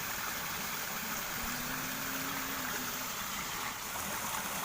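Steady rush of water falling from an outfall into a ditch. A faint low hum rises briefly in the middle.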